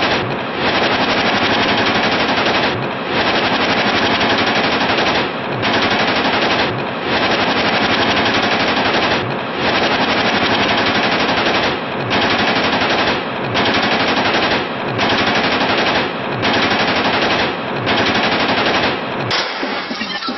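Long bursts of automatic fire from AK-47 rifles, one after another with brief pauses every one to two and a half seconds, loud and dense throughout until it thins near the end.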